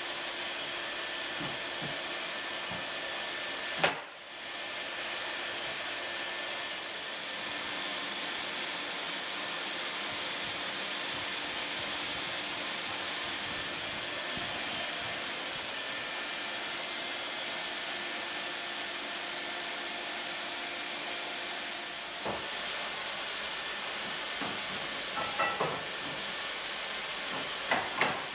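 Hand-held hot-air plastic welding gun blowing, a steady hiss, while the plastic sheets of the joint are tacked together. A sharp knock about four seconds in, and a few light clicks and knocks near the end as the parts are handled in the metal fixture.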